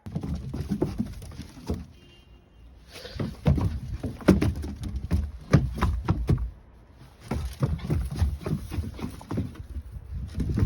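Irregular series of thumps and clicks over a low rumbling, rustling background, with a short quieter spell about two seconds in.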